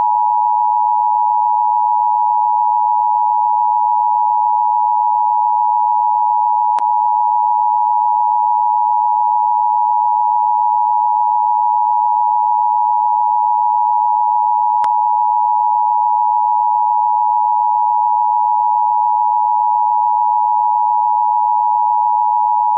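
Emergency Alert System attention signal: a loud, steady two-tone electronic alarm held without a break, cutting off abruptly at the end. Two faint clicks fall about a third and two-thirds of the way through.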